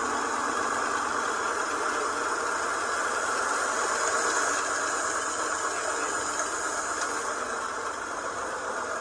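1947 Lincoln Continental's original flathead V12 engine idling steadily.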